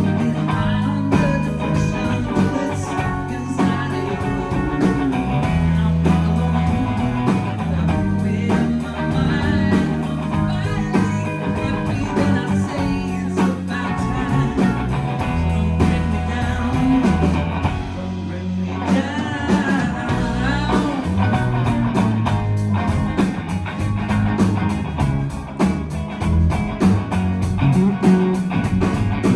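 Live band playing a rock song: guitar over a stepping bass line and a steady drum beat.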